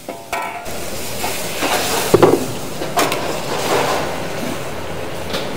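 Wok cooking: a steady roar, like a gas wok burner, rises sharply under a second in and holds, with the metal ladle clanking against the wok about two and three seconds in.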